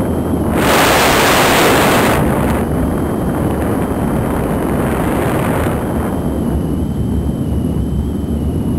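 Air rushing over the canopy of a DG1000 two-seat glider in flight, heard from inside the cockpit as a steady rumbling rush. About half a second in it swells into a loud hiss for under two seconds, and swells again more softly around five seconds in.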